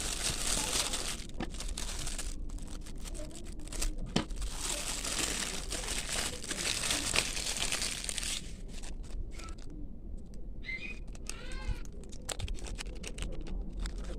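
Packaging crinkling and rustling as it is handled and opened, in two long stretches with scattered clicks and taps between them. A brief squeaky chirp comes near the end.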